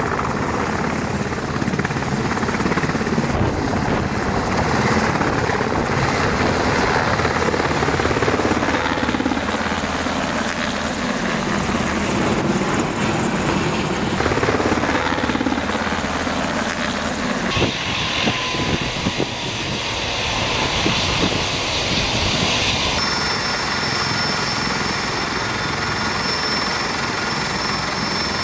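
Helicopter rotor and turbine noise that carries on throughout. First a Black Hawk–type fire helicopter lifts off and passes overhead. About two-thirds of the way in, the sound changes abruptly twice as the footage cuts. The last part has a steady high turbine whine from an Airbus H160 twin-engine helicopter.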